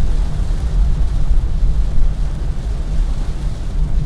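Steady low rumbling noise with an uneven, fluctuating level.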